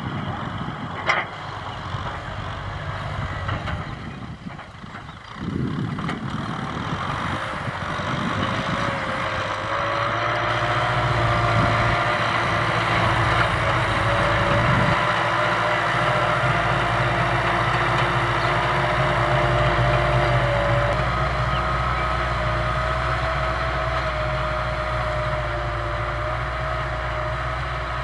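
Farm tractor engine running steadily, its pitch rising a little several seconds in and then holding. A sharp knock comes about a second in.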